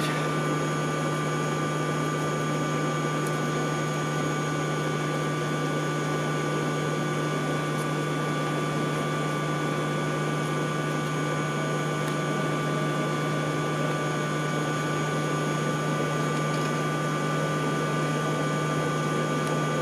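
Electric air blower for a coal forge running steadily, a constant hum and rush of air, with a few faint clicks.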